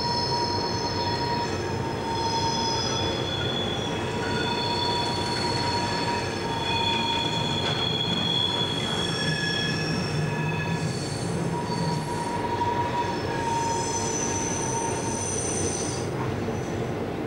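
Railway wheels squealing on curved yard track under a moving DSB class MK shunting locomotive, several high squeal tones that come and go and shift in pitch over the locomotive's steady running rumble, heard from inside its cab.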